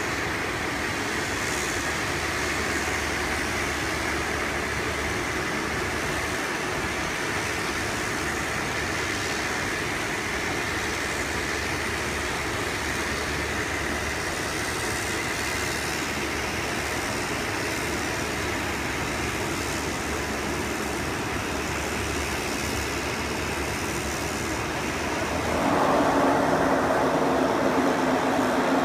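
Small twin-engine turboprop plane landing: a steady engine drone that gets louder, with a pitched propeller hum, about 26 s in as the plane rolls up the runway toward the listener.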